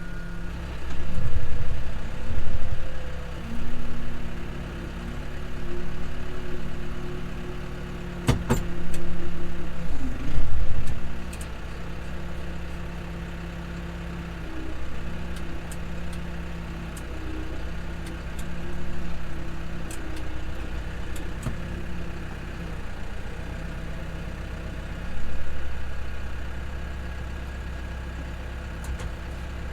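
Tractor engine running steadily, swelling in loudness several times, with a sharp knock about eight seconds in.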